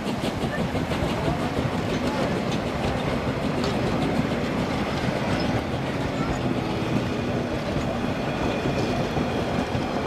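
Narrow-gauge steam railway passenger carriages rolling past, their steel wheels running over the rails with a steady noise and scattered clicks.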